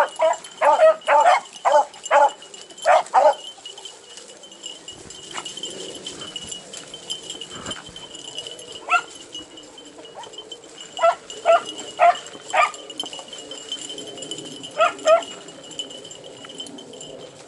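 Hunting beagles barking on a trail in the brush: a quick run of short barks over the first few seconds, then scattered barks, with a burst of four about two-thirds through and a pair a little later.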